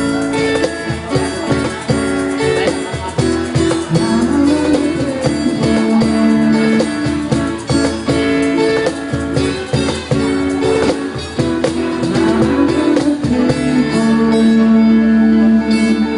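Instrumental guitar music with plucked notes over held chords, playing out the end of a song after the last sung line.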